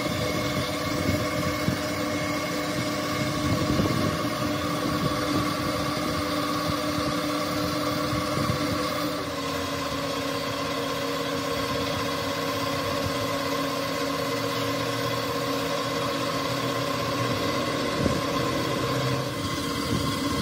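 An engine or motor running steadily, its tone shifting slightly about nine seconds in.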